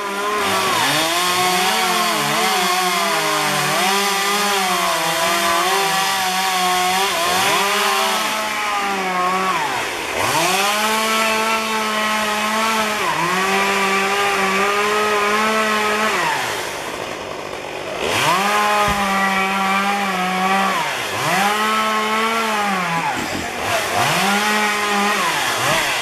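Chainsaw running at high revs while cutting cherry tree limbs, its pitch sagging under load in each cut and recovering again and again. About seventeen seconds in it eases off briefly, then revs back up.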